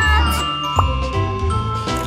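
Cheerful background music with tinkling, bell-like notes over a repeating bass pulse.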